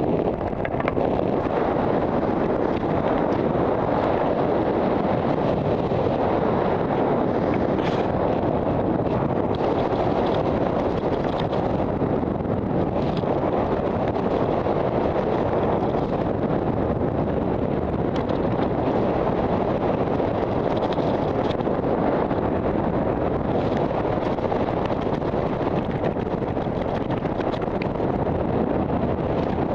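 Steady wind rushing over a head-mounted camera's microphone during descent under an open parachute canopy.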